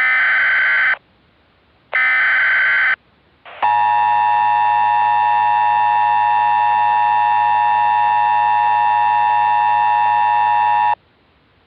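Emergency Alert System broadcast tones: two one-second bursts of SAME header data, then the steady two-tone EAS attention signal, held about seven seconds before it cuts off suddenly. The sequence marks the start of an emergency alert.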